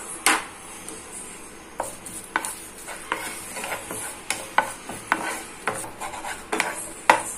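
Wooden spatula knocking and scraping against a nonstick frying pan as curry leaves are stirred and dry-roasted, about two uneven strokes a second, over a light sizzle from the leaves.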